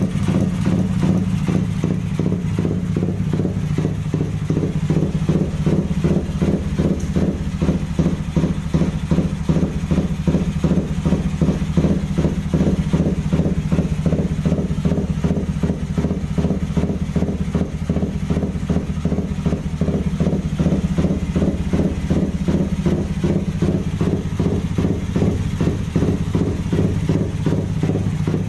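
Suzuki Satria FU 150's single-cylinder DOHC engine idling with an even, lumpy beat, its ignition timing set for the galloping 'horse timing' (timing kuda) lope. It runs steadily without being revved.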